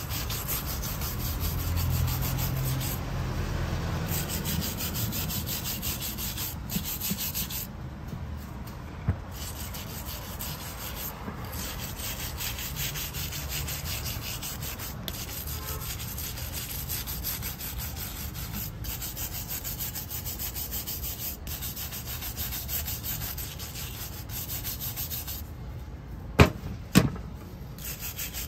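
A flat wooden stick scraping caked dried mud off the housing of a Hitachi S12-88 12 V starter motor, a steady rasping scrape. Two sharp knocks come near the end.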